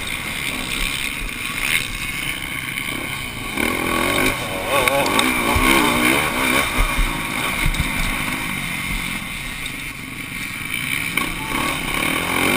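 Motocross bike engine running hard under racing load, heard from the rider's helmet with wind noise over the microphone. The engine note rises and falls with the throttle from about four seconds in, with low knocks from the rough track in the middle.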